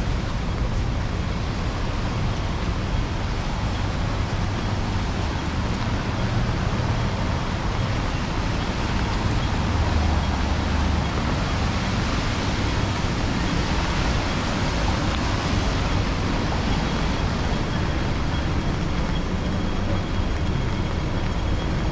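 Steady, even street noise of wind, rain and passing road traffic blending into one continuous hiss and rumble, with no single event standing out.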